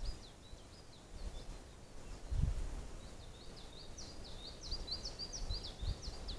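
A small songbird singing quick runs of short, high notes, briefly at the start and then in a longer run from about halfway to the end. Beneath it is a low outdoor rumble with a few dull low thumps; the loudest thump comes a little before halfway.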